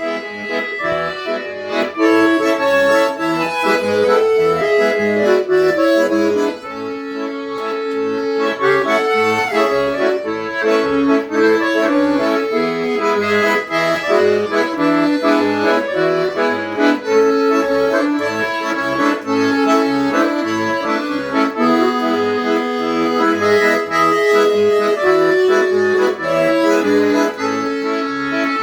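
Italian 80-bass accordion, freshly serviced, playing a lively traditional tune: a melody and chords over bass notes on a steady beat.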